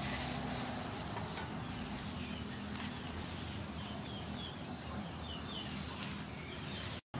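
Birds chirping in short repeated calls over the rustle of lemongrass leaves being handled as stalks are picked.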